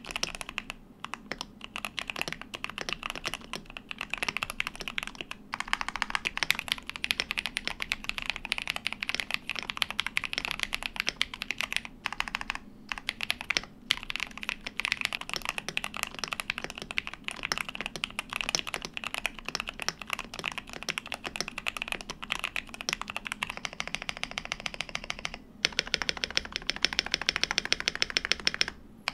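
Mechanical keyboard with Holy Panda tactile switches being typed on fast and continuously, a dense run of keystrokes. There are short breaks between takes, and near the end the typing turns brighter and clackier as the sound moves to the other switch variant.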